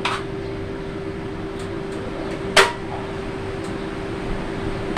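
Steady electrical hum with one clear pitched tone over a low rumble, and a single sharp click about two and a half seconds in.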